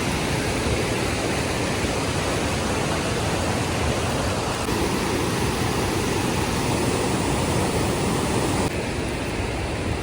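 Fast-flowing creek water rushing over rocks, a loud steady hiss and roar that eases slightly near the end.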